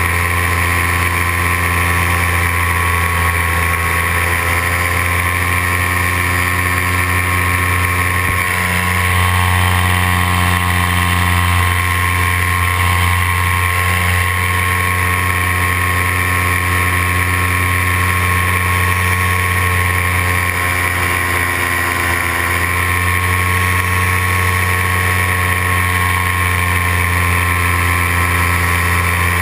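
Paramotor engine and propeller running steadily in flight, the pitch shifting slightly about eight seconds in and again around twenty-one seconds.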